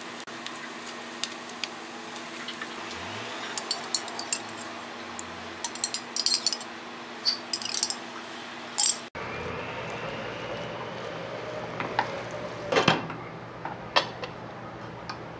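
A wooden spoon and a plastic spatula scraping and tapping against a nonstick frying pan while stirring textured soy mince, in short irregular clatters. Near the end a glass pot lid clinks as it is set onto the pan.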